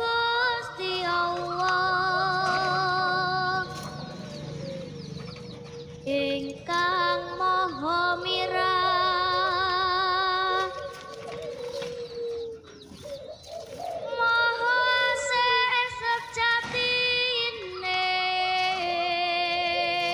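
Background music: a slow melody of long held notes that waver evenly, in phrases of a few seconds with short breaks between them.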